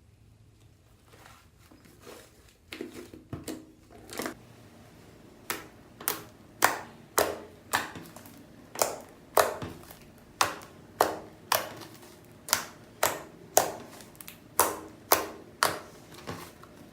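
Toothpaste slime being pressed and poked by hand, giving a few soft clicks and then a regular run of sharp pops about two a second.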